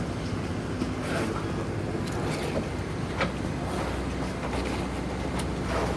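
Steady low mechanical hum with a noisy wash over it and a few faint ticks.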